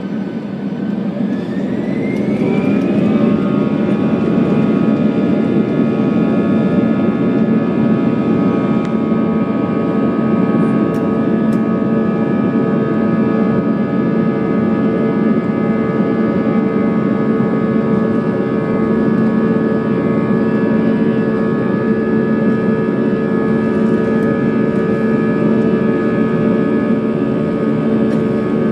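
Jet airliner's turbofan engines spooling up to takeoff thrust, heard from inside the cabin beside the wing: a rising whine and growing loudness over the first three seconds or so, then steady engine noise with several held tones as the takeoff roll begins.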